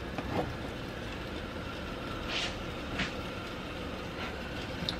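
Steady background hum and hiss of a kitchen, with two faint clicks about two and a half and three seconds in.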